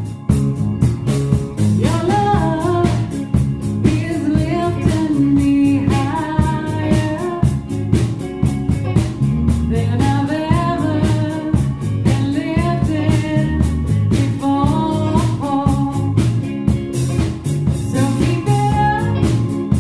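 Yacht-rock style song from a band: a sung lead vocal over drum kit, bass and guitar. The vocal comes in about two seconds in.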